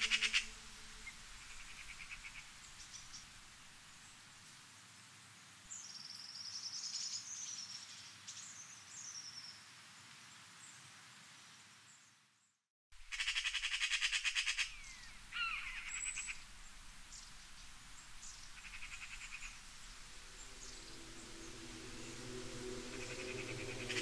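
Nature soundscape of small birds chirping and whistling, with several short buzzy, rasping trills. The sound cuts out for a moment about halfway.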